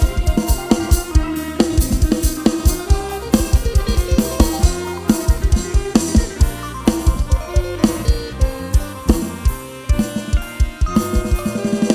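Isan 'lai hae' procession music: a plucked-lute-style melody over a drum kit with a heavy kick drum and bass, snare and cymbals. The deep kick drops out about eleven seconds in.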